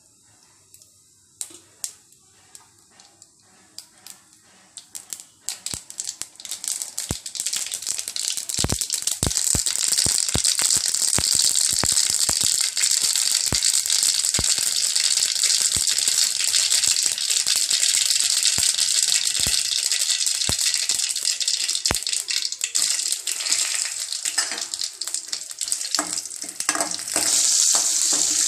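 Mustard seeds popping and spluttering in hot oil in an aluminium kadai: at first scattered single pops, building after several seconds into a dense, continuous crackling hiss. A few heavier knocks come near the end.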